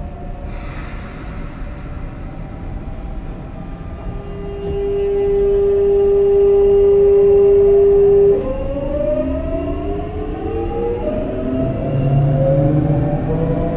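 Hitachi GTO-VVVF traction inverter and motors of a Sotetsu 8000 series train starting away from a station. A short hiss comes about half a second in. After about four seconds a loud steady single-pitched tone sets in, and then it breaks into several tones that rise in pitch as the train accelerates.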